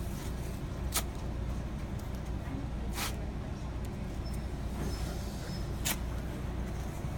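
White athletic tape ripping three times in short sharp bursts as strips are pulled and torn from the roll during an ankle taping, over a steady low hum.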